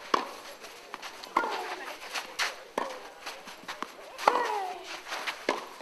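Tennis rally on a clay court: a ball is struck back and forth with rackets in sharp pops about every second or so. Some hits come with a player's short falling grunt or shout.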